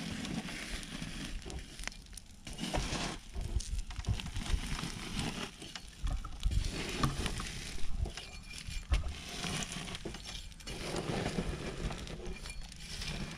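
An axe striking and chopping into a charred heap of burnt matchsticks: irregular crunching blows and short scraping rustles, with a low outdoor rumble underneath.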